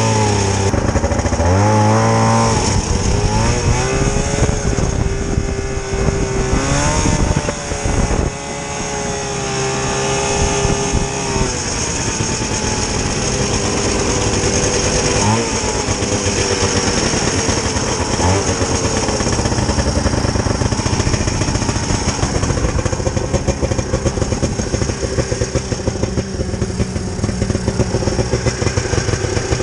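Vintage snowmobile's small two-stroke engine running. It is revved up and down several times in the first dozen seconds, then settles to a steady run.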